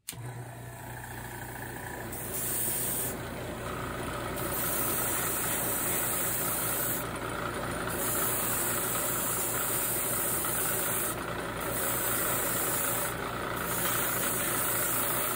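Airbrush spraying light-blocking paint in about five hissing bursts, the first about two seconds in, over the steady hum of its air compressor running throughout.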